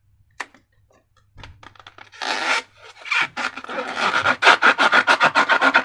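Rapid rubbing strokes from a transparent rubber balloon being handled, beginning about a second and a half in and growing louder and denser toward the end, after a single click.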